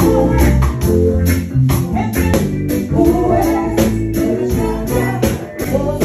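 Band music with a steady beat: a bass line, guitar, and a shaker or tambourine keeping time about three to four strokes a second.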